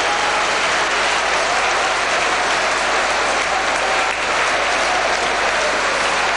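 Football crowd applauding in a steady, unbroken wash of noise, with a few faint wavering calls or whistles among it.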